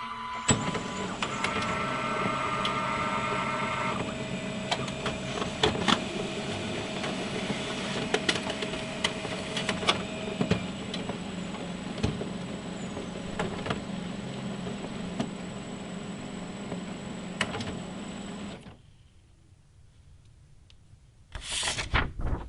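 Printer working through a print job: steady motor whirring with steady whining tones and frequent sharp clicks. It stops about three-quarters of the way through, and a short loud burst follows near the end.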